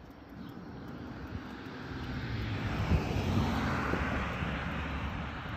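A car passing on the road beside the walker: its tyre and engine noise builds, peaks about three to four seconds in, then fades.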